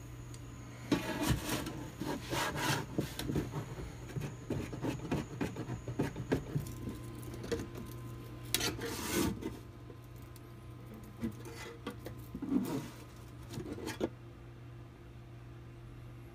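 Pliers gripping and prying at the folded corner of a rusty sheet-metal popcorn popper pan: irregular metal-on-metal scraping and clicking, with louder bursts near the middle and again shortly before it stops, a couple of seconds before the end.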